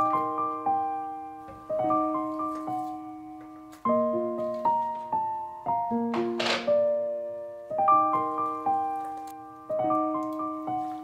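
Gentle background piano music, with notes and chords struck every second or two and left to ring and fade. A brief noisy swish comes through about six and a half seconds in.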